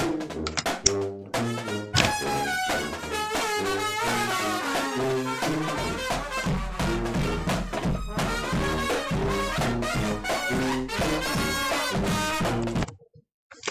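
Marching band playing live in a room: sousaphones and other brass over snare drums, a loud, rhythmic brass tune. The sound cuts out for about half a second near the end, then comes back.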